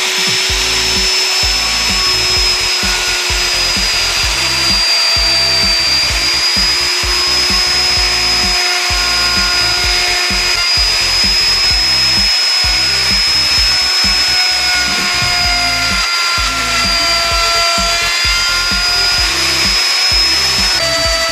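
Sturm electric plunge router running at steady speed with a high whine while routing a square pocket in a board, under background music with a steady beat.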